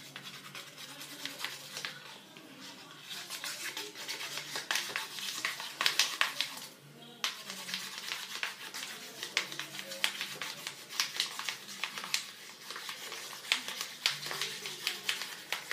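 Sticky homemade slime of shampoo and detergent being mixed, giving quick irregular wet clicks and crackles, with a short pause about seven seconds in.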